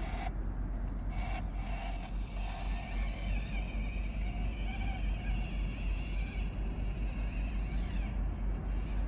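Small electric drive motor and gears of a 1:18-scale RC crawler whining faintly on and off as it drives, over a steady low rumble.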